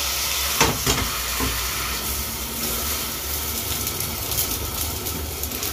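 Egg-and-zucchini omelette sizzling steadily in oil in a frying pan as it goes back into the pan from a plate after flipping. A few light knocks of the plate against the pan in the first second and a half.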